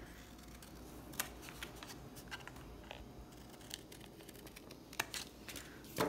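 Scissors cutting through paper: faint, scattered snips and clicks.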